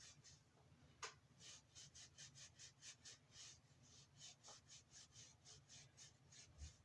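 Faint, quick rubbing strokes, about three a second, as a small item is wiped or scrubbed by hand, with a sharp click about a second in.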